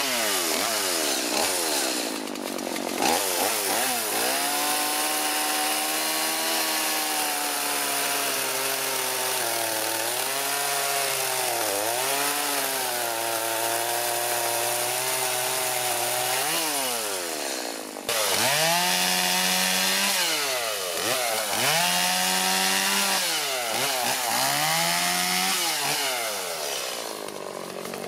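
Stihl MS 180 C two-stroke chainsaw cutting through a seasoned post oak log. The engine revs up a few seconds in and holds high revs through the cut, dipping twice as the chain bites. After a sudden break about 18 seconds in, it revs up and down several times and falls away near the end.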